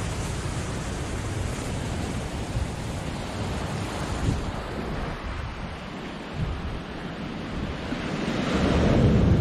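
Ocean surf breaking on a rocky shore, with wind buffeting the microphone; the surf swells louder near the end.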